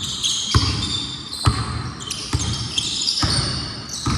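A basketball dribbled on the court, five bounces about a second apart, with short high-pitched sneaker squeaks throughout.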